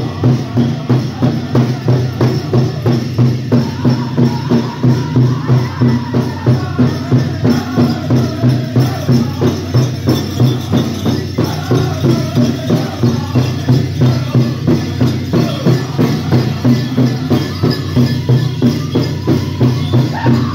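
Powwow drum group playing a grand entry song: a steady, even drum beat of about two strokes a second with singers' voices over it, and the metal jingles and bells on the dancers' regalia shaking.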